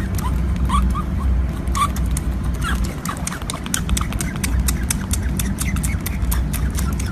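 Short, high, rising squeaks from a small animal, over a steady low rumble and many sharp clicks.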